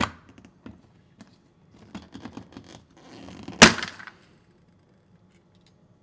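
LG dishwasher detergent dispenser being pulled out of the stainless steel door liner: a few light plastic clicks, then one sharp snap about three and a half seconds in as it pops free.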